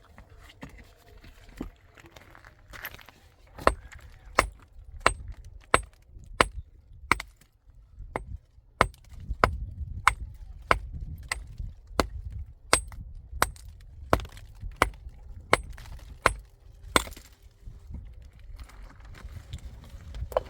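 A steady run of about eighteen sharp blows, roughly three every two seconds, each with a brief bright ring. They start about four seconds in and stop a few seconds before the end.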